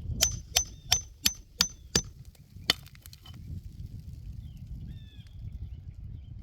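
A run of quick hammer blows with a metallic ring, about three a second, then a single harder blow after a short pause. A bird chirps briefly near the end, over a low wind rumble.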